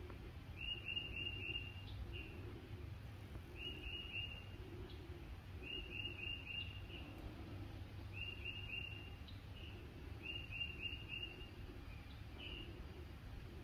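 A songbird singing a short phrase of four quick, clear notes, repeated five times about every two and a half seconds, with single notes between, over a steady low rumble.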